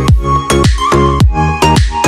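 Upbeat electronic music with a steady kick-drum beat and deep bass.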